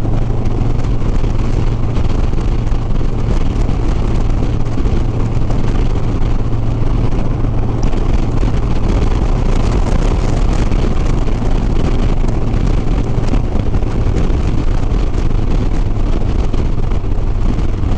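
Harley-Davidson Softail Sport Glide's V-twin engine running steadily at highway cruising speed, with wind rushing over the microphone.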